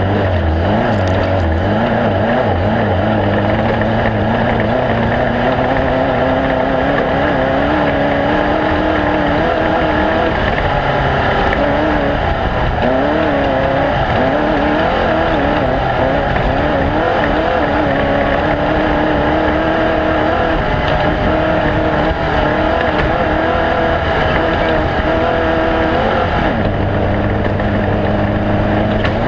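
Off-road race vehicle's engine running hard, its pitch constantly rising and falling with the throttle. About 26 seconds in it settles to a steadier note.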